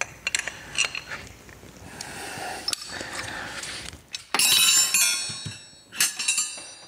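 Large chrome combination wrenches clinking against each other as they are handled and lifted from a steel tool-chest drawer. A loud ringing clank comes about four seconds in, with another clink near the end.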